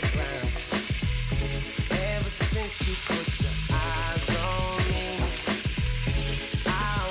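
Cubes of raw stewing beef sizzling in hot oil in an Instant Pot's stainless steel inner pot as they are dropped in and stirred with a wooden spoon, browning the meat. Background music plays throughout.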